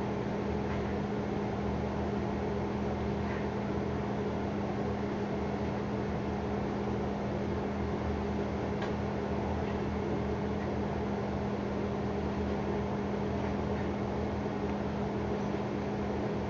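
Over-stove range hood fan running with a steady hum, and a few faint clicks through it.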